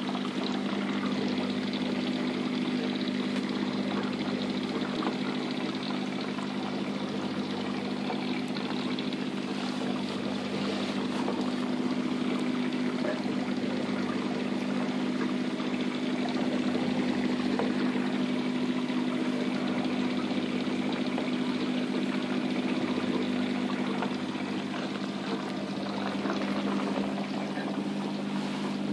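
Aquarium filter running: a steady electric hum with water trickling and splashing into the tank.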